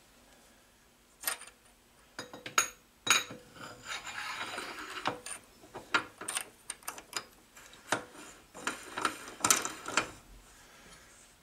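A 3AT collet being worked by hand into the spindle nose of an Atlas 10F lathe and onto its drawbar: irregular metallic clicks and rattles, with a longer scraping stretch about four seconds in.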